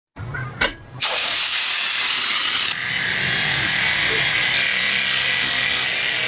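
A small handheld power tool running steadily for about six seconds, starting just after a sharp click.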